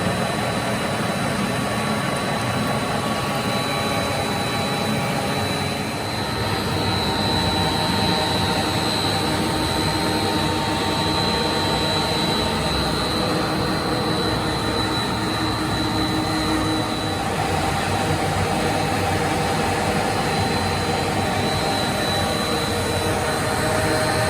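Plastic recycling pelletizing machine running steadily: a continuous dense machine rumble with a steady high whine over it.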